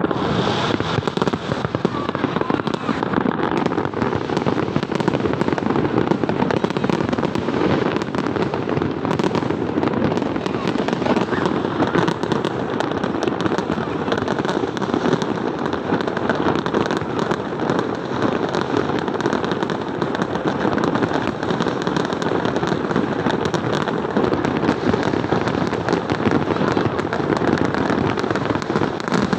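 Fireworks display going off in a dense, unbroken barrage of bangs and crackle.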